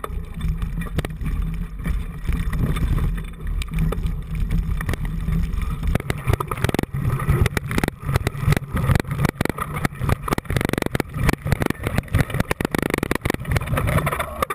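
Mountain bike ridden over a rough forest trail, heard from a camera mounted on the bike: a steady low rumble with a rapid clatter of knocks and rattles from the bike, growing denser from about six seconds in.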